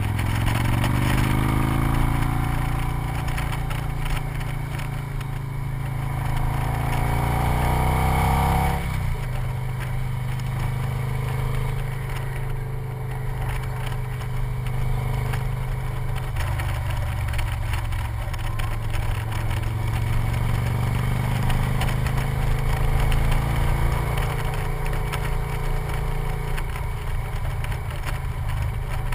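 Victory motorcycle's V-twin engine under way. Its pitch climbs steadily for about eight seconds as it accelerates, drops suddenly, then runs on at a steadier pace with slow rises and falls.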